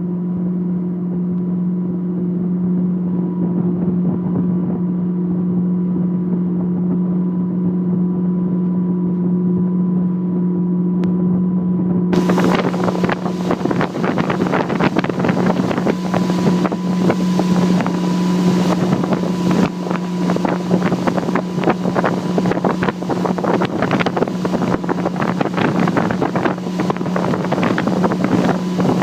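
Motorboat engine running with a steady hum. About twelve seconds in, loud wind and water rush on the microphone comes in suddenly over it.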